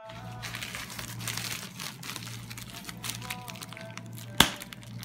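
Plastic bubble wrap being handled and crumpled, crinkling steadily, with two sharp pops near the end.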